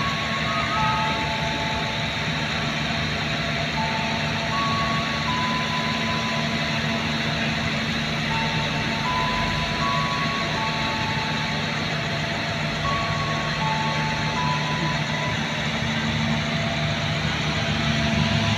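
Passenger train carriages rolling past close by, a steady rush of wheel and running noise with a low hum under it. Over it, a thin electronic melody of short single notes plays, changing pitch about every half second.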